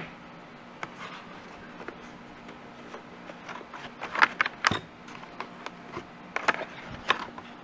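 Unpacking noises: a model helicopter canopy being worked out of foam packing in a cardboard box, a string of light scrapes, rustles and knocks. They cluster a little past four seconds in and again around six and a half seconds.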